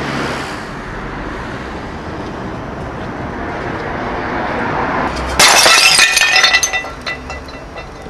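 A terracotta flowerpot smashing on the pavement about five seconds in, its shards clattering and scattering for a second or so, over steady street traffic noise.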